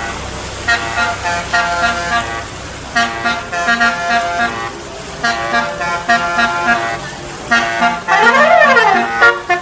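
Bus 'telolet' multi-tone musical horn playing a tune in short repeated phrases, with a rising-and-falling siren-like sweep near the end. A low engine rumble sits under the first few seconds.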